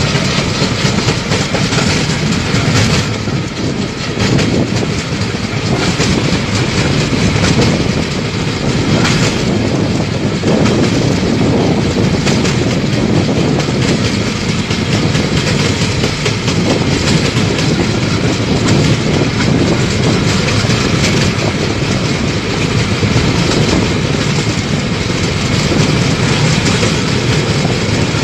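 Railway inspection trolley running along the track: a steady loud rumble with its wheels rattling and clattering on the rails throughout.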